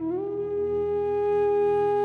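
Background music: one long held melodic note that slides up slightly at the start, over a low steady drone.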